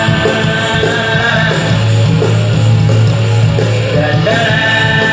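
A rock band plays: two electric guitars, bass guitar and drums. A low bass note is held for about two seconds in the middle.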